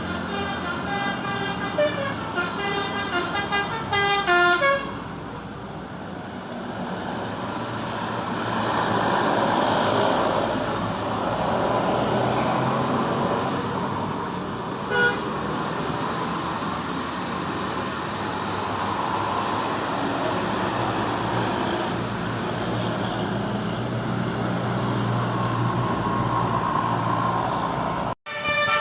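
Telolet multi-tone musical horn on a car playing a quick tune of short stepping notes for about the first five seconds. Then steady traffic and engine noise, with one brief horn toot about halfway through.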